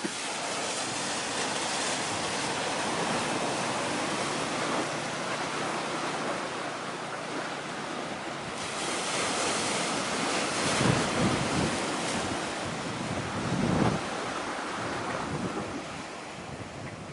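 Wind blowing over the microphone with the hiss of sea waves, and a couple of low gusts buffeting the microphone in the second half.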